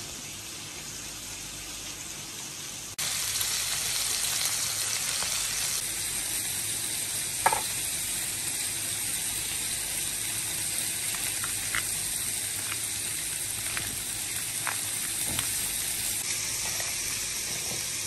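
Meat skewers sizzling on a grill: a steady hiss that gets louder about three seconds in, with a few light clicks and one sharper click partway through.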